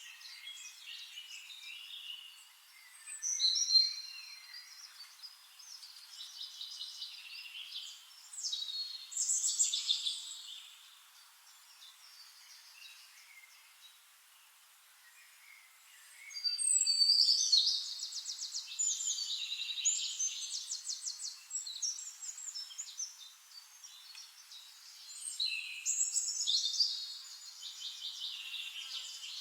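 Several songbirds singing in a forest dawn chorus: bursts of high chirps, rapid trills and whistles, with a quieter lull near the middle before the singing picks up again.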